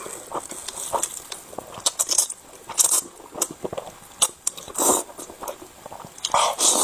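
Close-miked slurping and wet chewing of a mouthful of thick, saucy spicy noodles: irregular smacking clicks with longer hissing slurps about three, five and six and a half seconds in.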